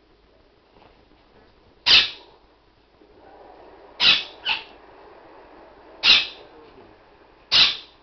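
Quaker parrot (monk parakeet) giving short harsh squawks: one about two seconds in, a quick pair about four seconds in, then two more.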